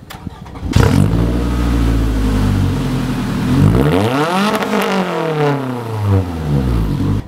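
Scion tC's four-cylinder engine running at idle from the exhaust, revved once about halfway through, its pitch climbing and then falling back to idle.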